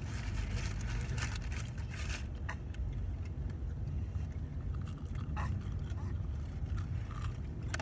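Steady low rumble of a car heard from inside the cabin, with scattered small clicks and rustles of a paper food box and sauce cup being handled, and chewing.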